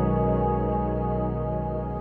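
Background music: a sustained ambient chord held steady, cut off abruptly at the very end.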